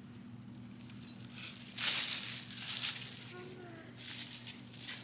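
Plastic bag crinkling and rustling as it is handled, loudest in a burst about two seconds in and again briefly near the end.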